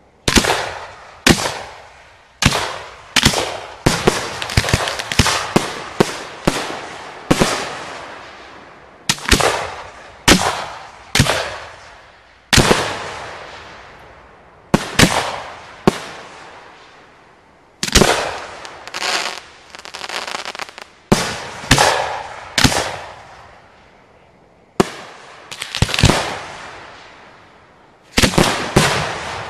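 Aerial firework shells fired from mortar tubes at close range and bursting overhead: a rapid, uneven run of sharp bangs, often two or three close together, each trailing off.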